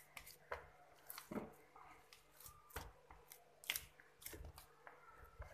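Hands kneading soft pizza dough in a steel bowl: a scattering of faint, short, sticky squishes and light taps at an irregular pace.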